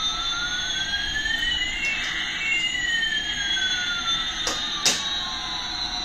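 Electronic jet-engine sound effect from a battery-operated toy Airbus A380: a whooshing hiss with a whistle gliding up while another glides down. Two sharp clicks come about four and a half and five seconds in.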